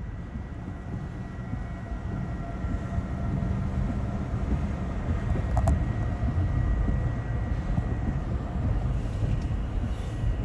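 Tornado roar: a steady, deep rumble that grows a little louder about halfway through, the freight-train sound of a large, violent tornado close by.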